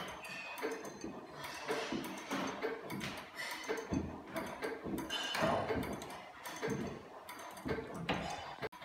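Electromechanical clock mechanism running, its electromagnet-worked levers and ratchet clicking and clattering at uneven intervals.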